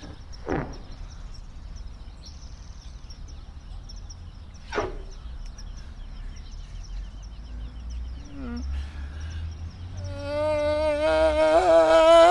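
A scraper blade rasps across a soapy car window in two short strokes, over faint insect chirping. About ten seconds in, a man starts a long, drawn-out scream that wavers and grows louder.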